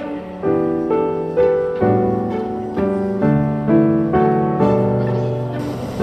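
Background piano music: a calm piece with a note or chord struck about twice a second, each ringing and fading.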